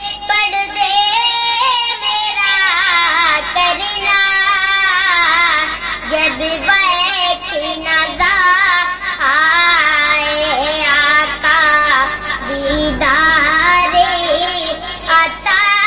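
A boy singing an Urdu naat, a devotional song in praise of the Prophet, in long ornamented phrases with a wavering, sliding melody and short pauses for breath between lines.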